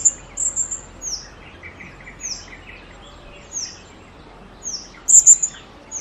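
Vernal hanging parrot calling: short, high-pitched notes that drop in pitch, repeated about once a second, with louder shrill bursts at the start and again about five seconds in.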